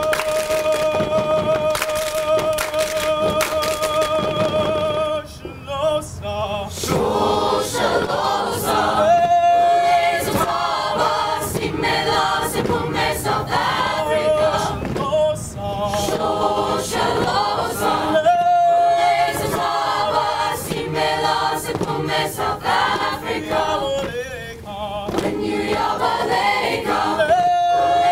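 Mixed choir singing. It holds one long chord for about five seconds, then moves into a rhythmic passage of short, shifting notes, with a sharp percussive beat under it throughout.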